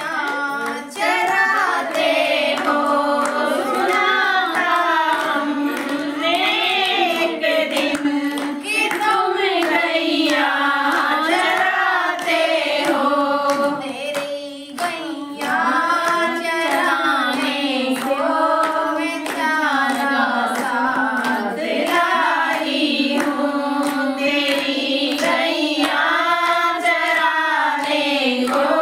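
A group of women singing a Hindi Radha-Krishna devotional bhajan together, clapping their hands to the beat. The singing and clapping continue throughout, with a short dip about halfway through.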